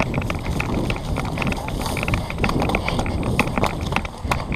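A player on the move: quick, irregular clicks and rustling of steps and gear over a low rumble of wind buffeting the microphone.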